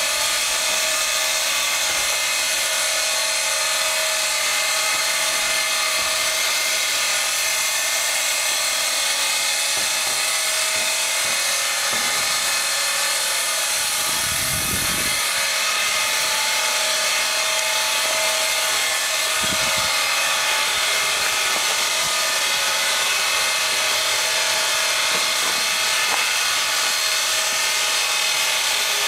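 East Broad Top Mikado (2-8-2) steam locomotive #15 standing under steam, with a steady hiss of escaping steam and a whine from its auxiliaries. There are two brief low thumps about halfway through.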